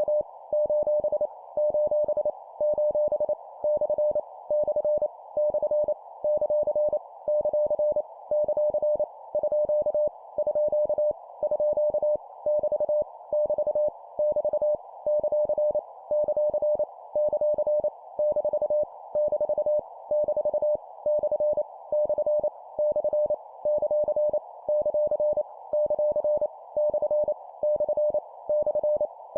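Morse code (CW) practice tone keyed at 25 words per minute: a single steady beep sending random punctuation characters, each repeated three times, as short evenly spaced groups with brief pauses between them, over a steady band of hiss.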